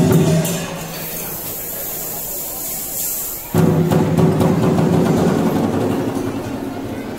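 Music accompanying a dragon dance, with steady sustained low tones; it drops away about a second in to a quieter stretch with a high hiss, then comes back abruptly about three and a half seconds in.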